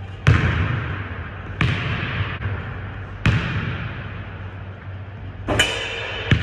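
Basketball bouncing on a hardwood gym floor: sharp, single bounces about every second and a half, each followed by a long echo in the large hall, with a sharper doubled knock near the end. A steady low hum runs underneath.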